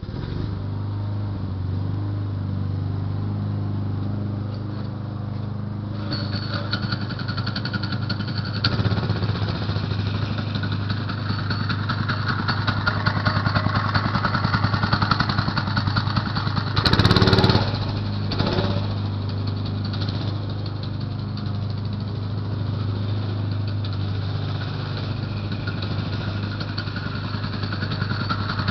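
Single-cylinder Briggs & Stratton 3 hp engine on a 1970s Lil Indian minibike starts up suddenly and then runs steadily. From about six seconds in it runs louder and harsher as it is revved, with a brief louder burst a little past halfway.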